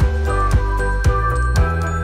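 Background music with a steady beat of about two strokes a second over sustained melodic tones and a bass line.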